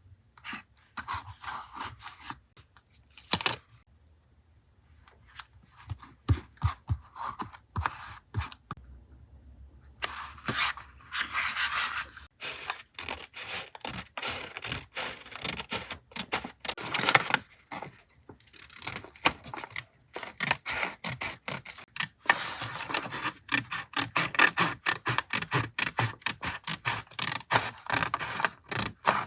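Close-up paper and journaling-supply handling: scraping, rubbing and light taps. Sparse, with quiet gaps, for about the first ten seconds, then dense and rapid.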